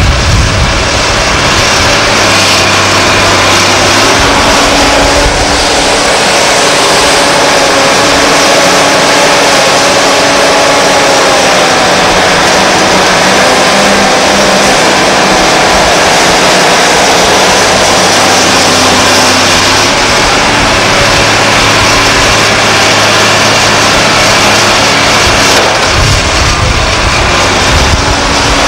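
Liebherr R962 hydraulic excavator working: its diesel engine runs steadily under load, with a whine that wavers in pitch as the boom and bucket move.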